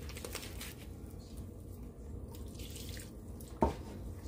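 Water trickling and dripping from a plastic measuring jug into a bowl of wet bread dough, added a little at a time to soften it. A single sharp knock comes about three and a half seconds in.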